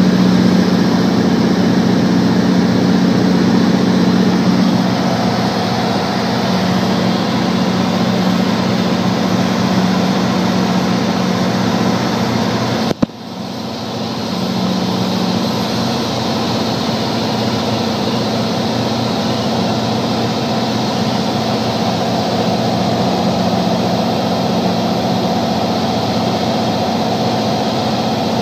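Cirrus SR22's six-cylinder piston engine and propeller droning steadily as heard inside the cabin, with airflow hiss, easing slightly about five seconds in. About halfway through the sound drops out briefly with a click, then the same drone resumes.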